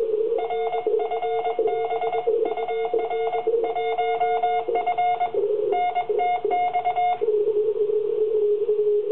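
Morse code (CW) on an amateur radio station: a beeping tone keyed in dots and dashes for about seven seconds, over a steady hum of receiver audio. The keying stops near the end while the receiver tone carries on.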